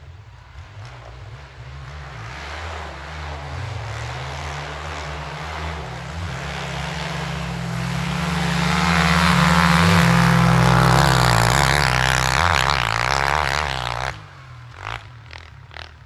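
A snowmobile and a quad (ATV) racing side by side under hard throttle, their engines growing steadily louder as they close in and pass near by, then the sound drops away suddenly near the end.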